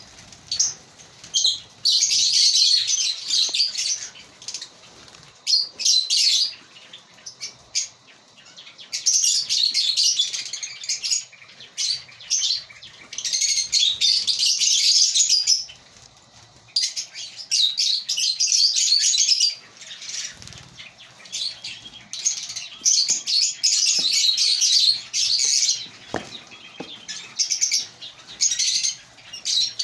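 A colony of African lovebirds chattering in repeated bouts of rapid, high-pitched chirps, each bout lasting one to three seconds, with short quieter pauses between them.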